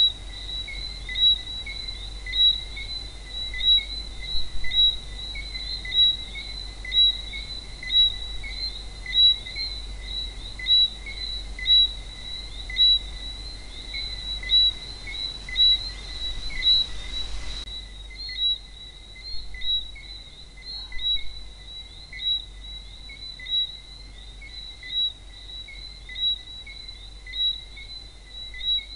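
Night chorus of Antillean frogs: many high, whistled calls overlapping continuously, with one louder nearby frog calling about once a second. The faint background hiss drops noticeably about two-thirds of the way through.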